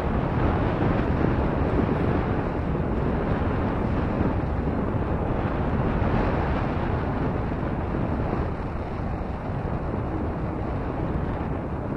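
Wind rushing over the microphone on the open upper deck of a moving cable car: a steady low noise with no distinct events, easing slightly about two-thirds of the way through.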